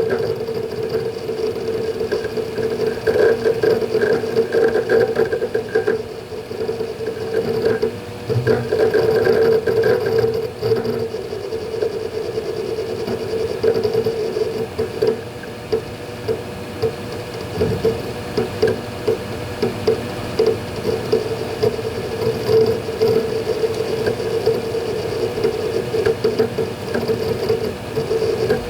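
Western Digital Ultrastar hard drives in a Synology DS220+ NAS working through a Hyper Backup: a dense, irregular clatter of head seeks over a steady hum.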